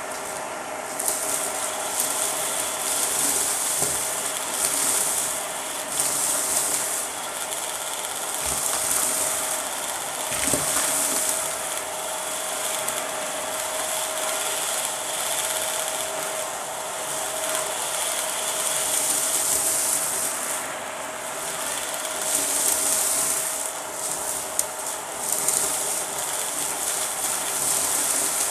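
Dyson vacuum running with its hose nozzle sucking up a pile of crunchy dry debris from a shag rug: a steady motor whine under continuous rattling and crackling as the bits are pulled through the hose. The airflow hiss swells and fades every second or two as the nozzle moves in and out of the pile.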